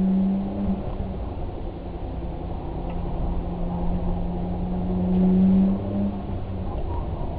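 A vehicle engine running at a steady pitch over a low rumble, swelling louder at the start and again about five seconds in.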